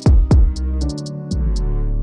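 Electronic background music with deep falling kick drums, ticking hi-hats and a steady synth bass.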